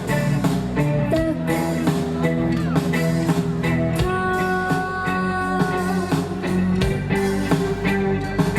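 Live rock band playing an instrumental passage: electric guitar over bass and drums, with no vocals.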